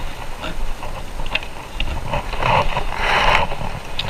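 Particleboard cabinet panels scraping and knocking as the bottom panel is pushed down into place on the side panel, with a few short clicks and two longer scrapes near the end.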